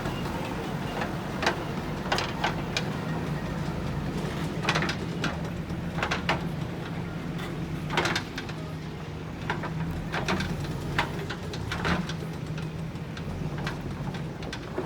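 JCB backhoe loader's diesel engine running steadily, with repeated sharp knocks and clatters from the bucket working stones.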